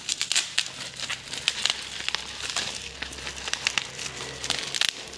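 Rustling and crinkling of a fabric storage pouch as a folding camping gas stove is pulled out of it, with irregular light clicks as the stove is handled.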